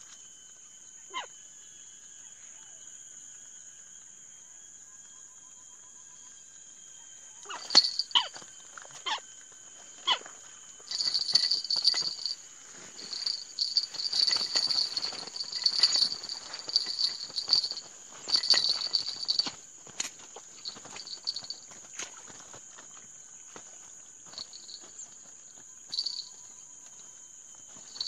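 Steady high-pitched insect chorus, crickets or similar, in the open. From about eight seconds in, bouts of a louder, irregular high chattering with sharp clicks break in, come thickest in the middle and thin out towards the end.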